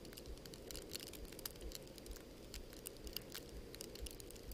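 Falling snow pattering on the microphone: irregular light ticks, many a second, over a low rumble.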